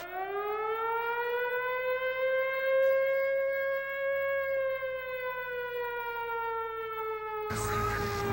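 An air-raid siren wail: one long tone that rises at the start, holds, then slowly falls. Music comes in near the end.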